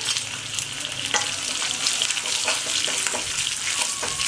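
Hot oil sizzling and crackling in a small tempering ladle with mustard seeds, dals, chillies, curry leaves and turmeric. A spoon stirs it, with a few light clicks against the pan.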